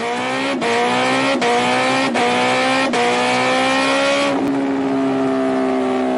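Racing-car engine sound effect, its pitch climbing in steps with a short break about every three-quarters of a second, then holding steady for the last two seconds.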